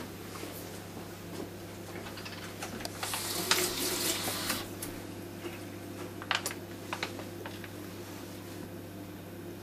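Soft plastic mayonnaise pouch squeezed over a salad: the pouch crinkles and the mayonnaise sputters out, loudest about three to four and a half seconds in, followed by a few sharp clicks. A steady low hum runs underneath.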